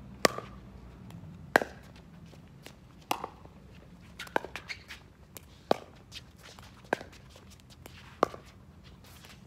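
Pickleball paddles striking a plastic pickleball in a rally: sharp pops roughly every second and a quarter, seven strong hits in all, with fainter taps of the ball between.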